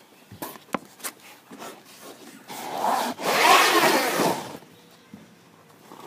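Handling noise as the recording device is set into the ground: a few sharp clicks, then a loud rubbing scrape lasting about two seconds.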